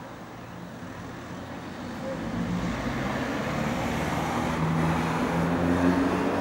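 An engine running with a steady low hum, getting louder about two seconds in and staying loud, over a background of road traffic noise.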